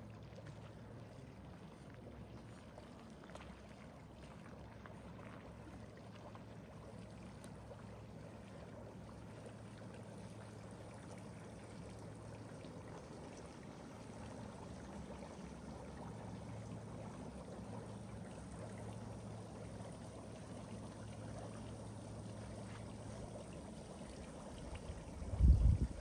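Shallow mountain stream of water flowing and trickling over stones, a steady rush that grows a little louder midway. Near the end comes a brief loud low-pitched bump.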